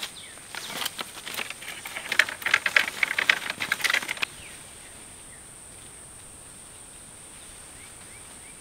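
Plastic tarp crinkling and crackling in a quick run of sharp rustles as mulberries are handled on it. It stops abruptly a little over four seconds in, leaving a steady high insect drone.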